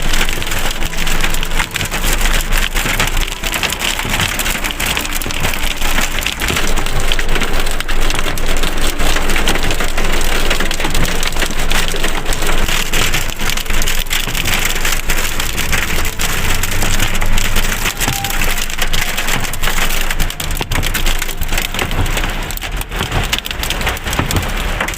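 Heavy rain and hail drumming on a car's roof and windscreen, a loud, dense, steady crackle of impacts, heard from inside the cabin.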